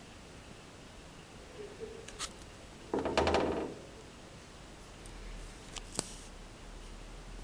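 A wooden skewer scraping and tapping on a stone countertop: a short rasping scrape about three seconds in, a few light clicks before it, and one sharp tick at about six seconds.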